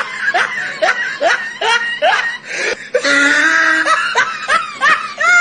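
A person laughing in a run of quick, repeated bursts, broken about three seconds in by a longer held vocal sound.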